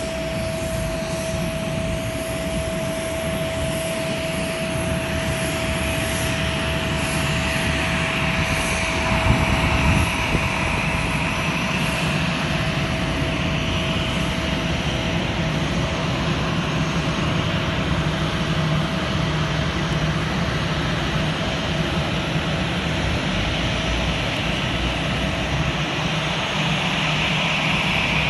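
Jet engines of an Air India airliner running steadily as it taxis in toward the stand: a constant rumble with a high hiss that swells near the end. A thin steady tone fades out about halfway through.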